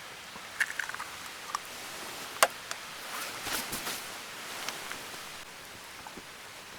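Scattered light clicks and short rustles, with one sharper click about two and a half seconds in.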